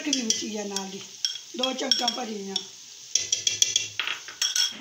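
A wooden spoon stirring and scraping onions and chicken frying in an aluminium pot, with sizzling. A run of sharp knocks against the pot starts about three seconds in.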